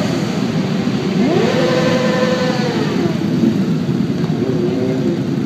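Several motorcycle engines running together, one revved up sharply about a second in, held high, then dropping back about three seconds in.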